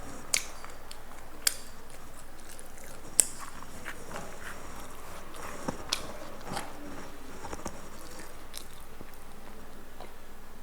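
Scattered sharp clicks and light taps, about seven spread unevenly over the stretch, the strongest in the first few seconds, over a faint steady hiss.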